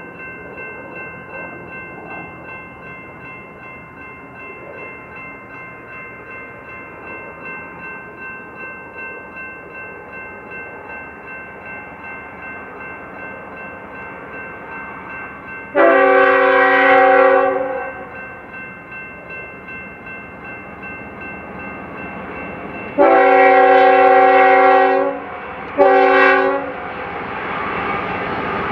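Diesel freight locomotive's air horn sounding the grade-crossing signal as the train approaches: a long blast about halfway through, then near the end a second long blast followed quickly by a short one. The train's steady rumble runs underneath.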